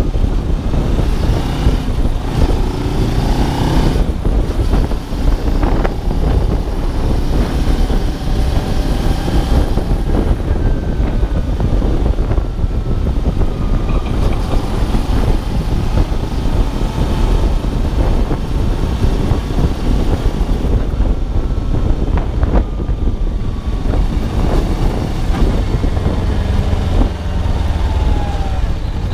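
Kawasaki ZZR250 with a swapped-in Ninja 250R 249 cc parallel-twin engine running at low road speed, its pitch rising and falling as the rider works the throttle.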